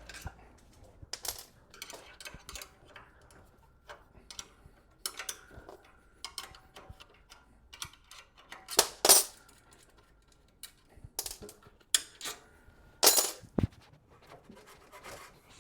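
Irregular metal clinks and knocks as a bed frame is taken apart, its nuts and bolts being worked loose and its bars handled, with two louder clanks in the second half.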